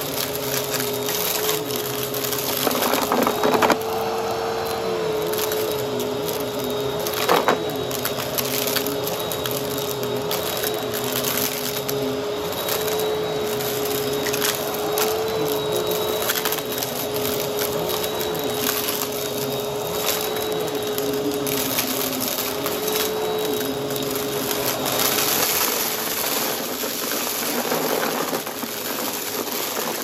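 Vacuum cleaner running over a rug, its motor holding a steady whine while the brushroll picks up crunchy debris, with a few sharp cracks about three and seven seconds in.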